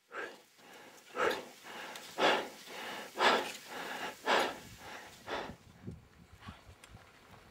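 A person breathing hard and heavily, about one loud breath a second, from exertion at high altitude. The breaths then fade, and short knocks of steps on stones are heard near the end.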